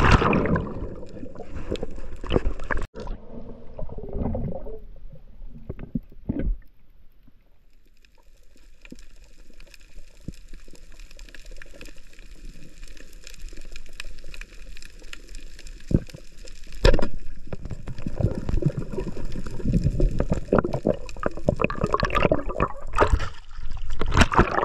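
Water sloshing and gurgling, with a couple of sharp splashes and a busier, choppy stretch of splashing near the end.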